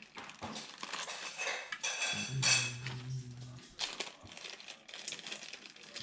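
Small metal PC parts, such as cooler mounting screws and brackets, clinking and rattling as they are handled and fitted. A steady low hum runs for about a second and a half in the middle.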